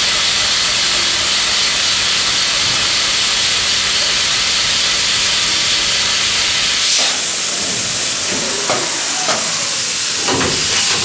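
Milling machine running during high-feed milling, with a loud, steady hiss. About seven seconds in the sound changes and irregular knocks and clatter come in.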